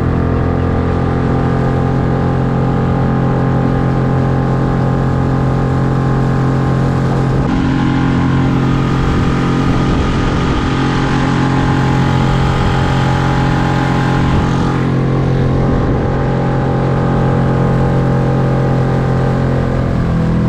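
Small 6 hp outboard motor running steadily at full throttle during its break-in, pushing a micro skiff along. The drone holds an even pitch, shifting slightly a couple of times.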